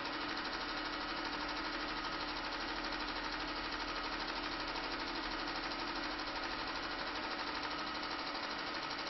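Cine film projector running: a steady mechanical whirr with a fast, even flutter and no change in level.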